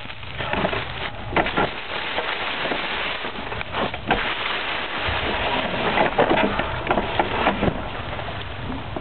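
Remote-controlled lawn mower running through dry leaves and grass: a dense, continuous crackling rustle dotted with sharp clicks.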